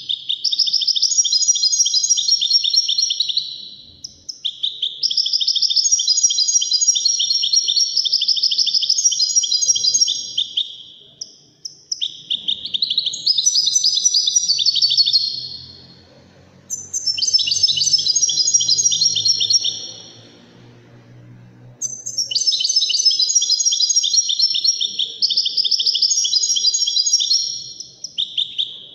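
Caged Moroccan 'wedani' European goldfinch singing: long phrases of rapid, high twittering notes, five runs of song broken by short pauses.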